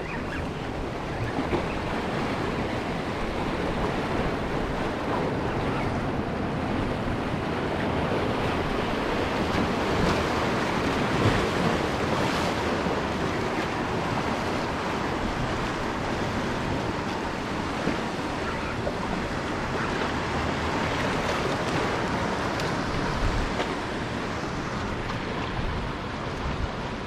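Sea surf washing and breaking against the boulders of a rock jetty, a steady rushing wash, with wind on the microphone.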